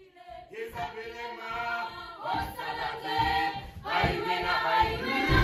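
A group of voices singing together in a choir-like song, fading in from quiet and growing steadily louder.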